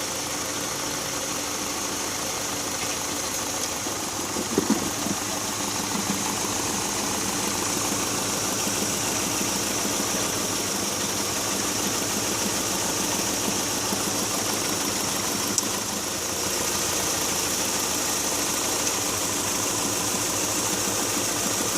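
2001 Hyundai Accent's four-cylinder engine idling steadily during a cylinder-by-cylinder injector check on a car said to be misfiring.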